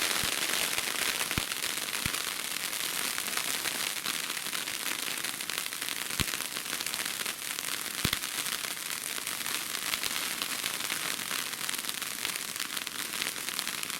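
Consumer fireworks crackling continuously, a dense fizzing crackle, with a few sharp pops scattered through it.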